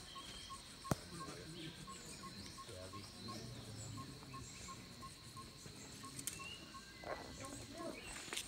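Faint outdoor insect chorus: a steady high whine with a regular chirp repeating about six times a second, and a single sharp click about a second in.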